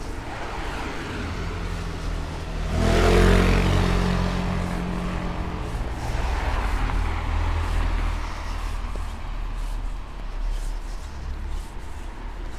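Road traffic passing on a street. One vehicle goes by close with its engine running about three seconds in, the loudest moment, and a second, quieter pass-by follows a few seconds later over a steady low rumble.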